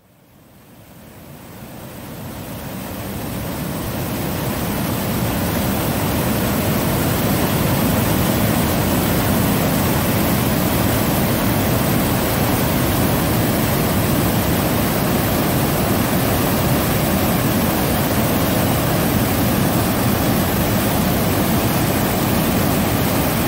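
Water rushing over an icy waterfall in a loud, steady rush, fading in over the first few seconds.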